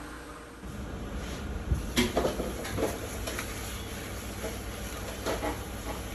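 A few sharp clanks and knocks of metal cooking utensils, some with a brief ring, over a steady low hum.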